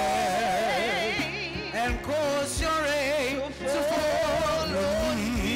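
A woman singing a gospel worship song through a microphone over backing music. Her voice wavers in a wide vibrato on long held notes.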